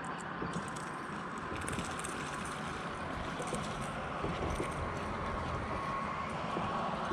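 Steady open-water background noise on a small boat, with a faint steady whine and scattered light clicks.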